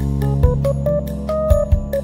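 Background music: a melody of short notes over a low bass line, with a few low beats.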